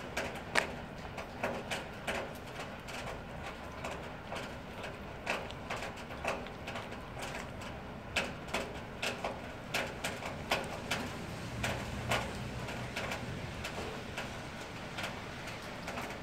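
A cat chewing and eating food close up: irregular wet clicks and smacks, a few a second.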